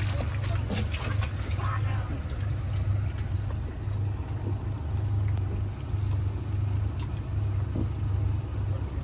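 Boat's outboard motor idling steadily, a low continuous hum, with a few faint knocks and splashes near the start as bait is dipped from the net.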